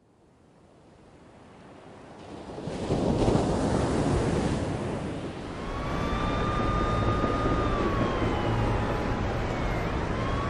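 Surf and wind rushing on the microphone, fading in over the first few seconds. From about halfway a steady high tone runs over it, dipping lower and rising back near the end.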